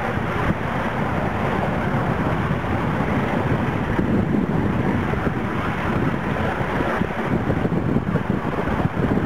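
A 5-inch gauge Sweet Pea live steam locomotive running along the track: a steady rush of exhaust and wheels on the rails, with wind on the microphone.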